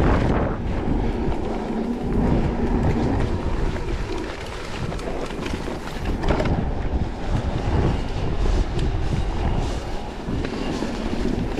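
Riding noise from a Cube Stereo e-mountain bike: knobby tyres rolling over gravel and rough, cracked tarmac while the bike rattles and clatters over bumps, with wind rumbling on the microphone.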